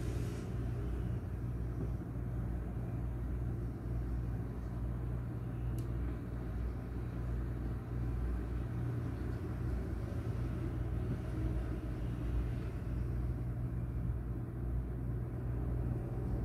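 Steady low background rumble, even throughout, with one faint click about six seconds in.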